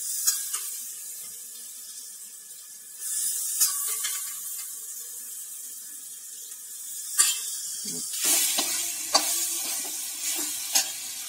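Boiled chickpeas sizzling as they are spooned into hot oil and roasted spice masala in a steel kadhai. The sizzle grows louder about three seconds in, and a metal ladle and slotted spoon clink sharply against the steel pans several times.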